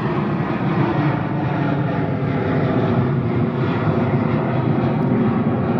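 Jet airliner engines at high power on a departure, a steady, loud rumble with a hiss above it that holds throughout.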